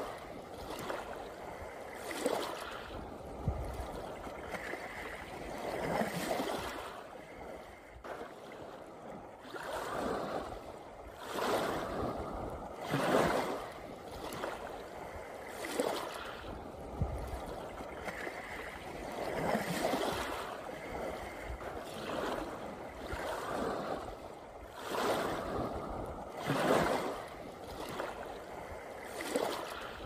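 Small sea waves lapping and washing against a rocky shore, each wash swelling and fading at an irregular pace of one every two to four seconds.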